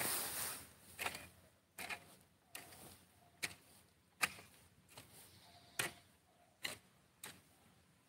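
Long-handled hoe striking and scraping through dry grass and soil, a sharp chop followed by a short scrape, repeating a little more than once a second.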